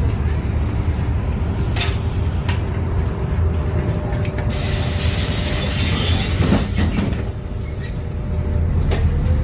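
Cabin noise inside a moving LiAZ 5292 city bus: the steady drone of its MAN E0836 compressed-natural-gas engine and road rumble, with a loud hissing rush about halfway through and a few light rattles. A whine starts to rise in pitch near the end as the bus picks up speed.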